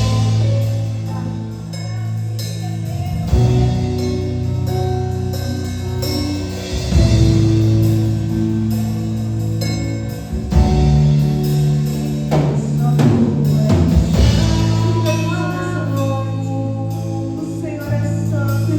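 A live worship band playing with a drum kit and sustained bass notes, with voices singing over it.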